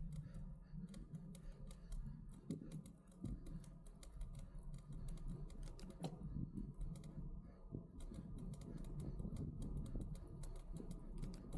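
Wind rumbling on an action camera's microphone as a road bike descends, with rapid, irregular clicks and rattles over it.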